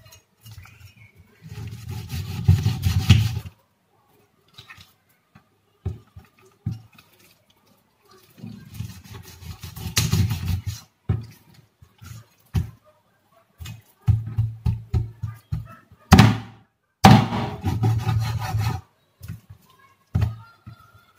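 Meat cleaver chopping through chicken carcass and bone onto a wooden chopping board. The chops come in several runs of quick strokes with short pauses between, plus a single heavy stroke in the second half.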